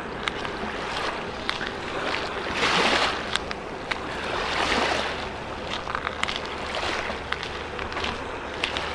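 Road traffic crossing the causeway bridge overhead: a steady hiss of tyres, with two passing vehicles swelling and fading about three and five seconds in. Wind and scattered sharp clicks sound through it.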